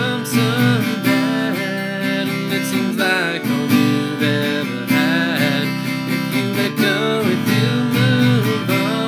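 Acoustic guitar strummed, playing steady chords with a regular rhythm as an instrumental passage between sung lines.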